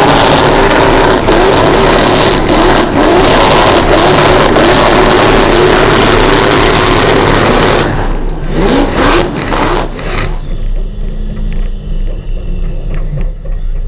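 Supercharged 427 cubic-inch V8 of a Holden Commodore ute held at high, wavering revs through a burnout, mixed with tyre noise. About eight seconds in the revs fall away in a few dropping blips. The engine then settles to a much quieter, low-pitched run as the ute rolls off.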